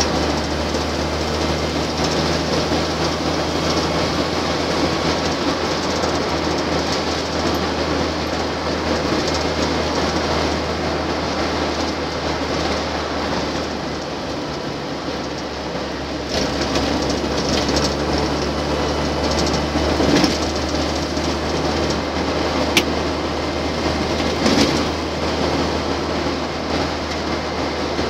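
Land Rover Series II on the move, its engine, gearbox and road noise heard inside the cab as a loud, steady drone. It dips briefly about halfway, then picks up again, and a few sharp knocks or rattles come in the last third.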